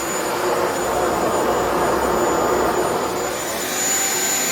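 Shark Vertex HZ2002 corded stick vacuum running, a steady whooshing rush of air with a thin high whine on top.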